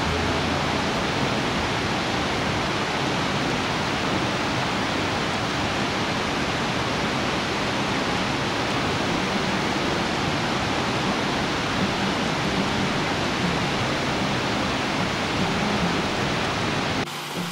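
River water rushing steadily over and through a bamboo fish weir: a dense, even roar of falling water that cuts off suddenly near the end.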